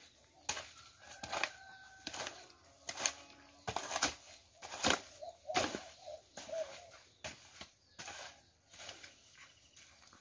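Hoes chopping and scraping into damp earth in irregular strikes, about one or two a second, as soil is turned and wetted into mud for adobe bricks.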